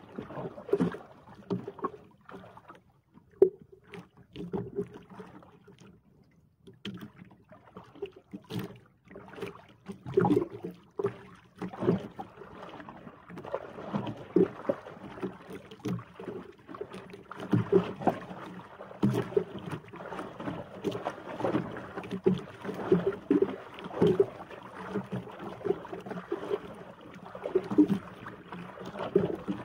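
Choppy sea slapping and sloshing against the hull of a small outrigger boat in irregular low splashes, busier after the first several seconds, with one sharp knock about three seconds in.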